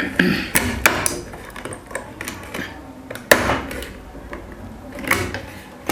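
Screwdriver prying at the snap-fit plastic cover of an LG refrigerator door handle: scattered sharp plastic clicks and knocks, the loudest about three seconds in.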